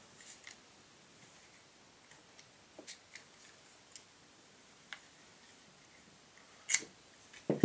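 Light, scattered clicks of small metal parts as a Glock tool presses on the slide lock spring of a Glock 26 Gen4 frame to free the slide lock lever. Sharper clicks come near the end.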